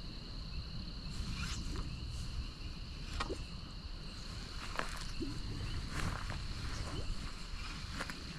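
A steady insect chorus holds a high, even trill, with scattered sharp clicks and short chirps or pops over it.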